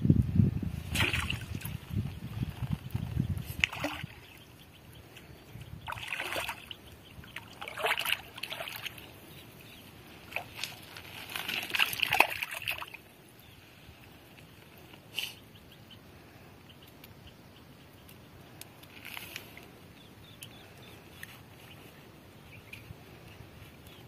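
Water splashing and sloshing in short, separate bouts about seven times, the longest about 11 to 13 seconds in, with a low rumble in the first few seconds.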